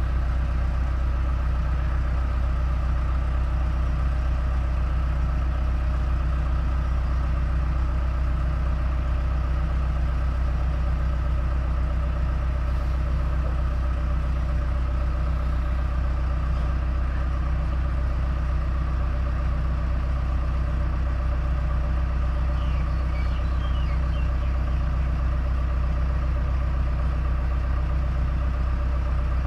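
Telehandler's diesel engine running steadily at low revs while its boom lifts a roof truss.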